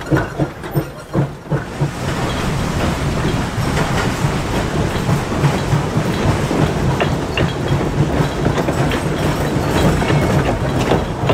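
Narrow-gauge rail cars rolling along the track, a steady clatter with wheels clicking over the rail joints, with a few separate knocks in the first couple of seconds.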